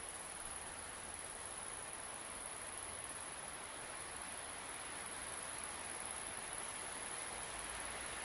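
Steady open-field wind hiss with a continuous high insect chorus, like crickets, running over it.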